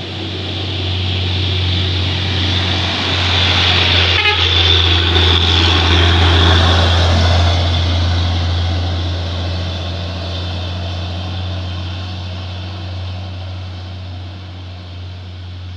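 Heavy diesel cargo truck passing close by with its engine running. The sound builds over the first few seconds, is loudest for a few seconds, then slowly fades as the truck moves away.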